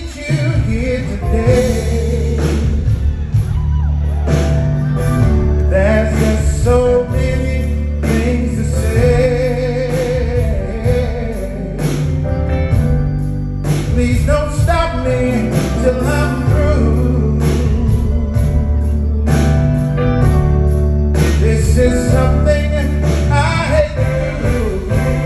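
Live soul ballad: a male vocalist singing into a microphone over a backing band, with a steady bass line and sustained keyboard chords.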